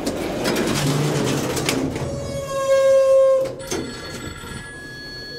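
Mobile phone ringing: a held electronic tone about a second and a half long, the loudest thing here, with fainter high tones lingering after it. It follows a couple of seconds of noisy background rumble.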